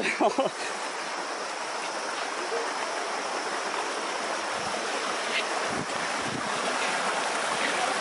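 River water rushing steadily, a constant noise of flowing water, with faint voices in the background now and then.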